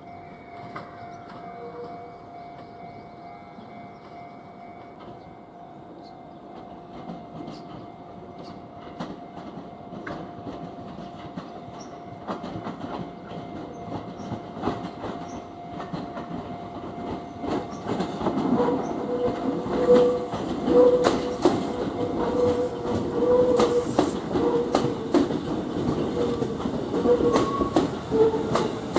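Fujikyu electric train approaching and passing close below, its wheels clicking rhythmically over the rail joints and switch points. It starts faint and grows much louder from about halfway, the clicks densest and loudest near the end.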